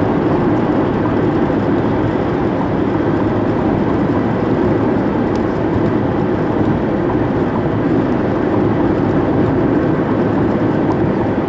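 Steady road and engine noise inside a car's cabin at highway speed, an old four-cylinder car climbing a long mountain grade. The sound is an even rumble with no sudden events.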